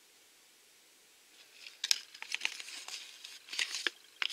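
A folded paper collector's leaflet being handled and unfolded, crinkling and crackling in a quick series of rustles that start about two seconds in.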